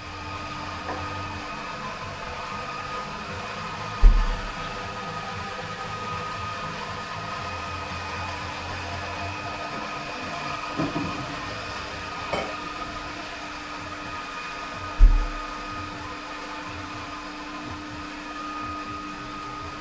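Steady mechanical hum of café machinery with a few held tones in it. Two dull low thumps, one about four seconds in and another about eleven seconds later.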